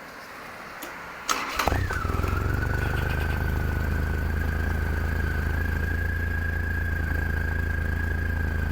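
Motorcycle engine started on the electric starter: a click and a brief starter whine about a second in, then the engine catches and settles into a steady idle.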